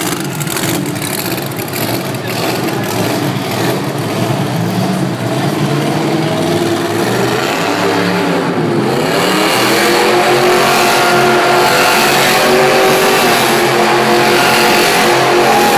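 Monster truck engine running hard under heavy throttle while the truck spins donuts, the revs rising and falling. A little past halfway the revs drop sharply, then climb again and hold high and louder.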